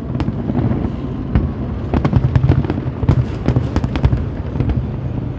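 Fireworks going off in a rapid string of bangs and crackles over a steady low rumble, busiest about two to four seconds in.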